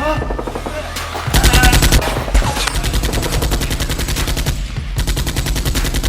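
Several bursts of rapid automatic gunfire, the loudest about a second and a half in.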